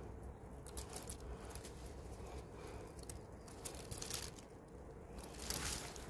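Faint outdoor background with a low steady rumble, broken by a few soft rustles and clicks: about a second in, between two and four seconds in, and near the end.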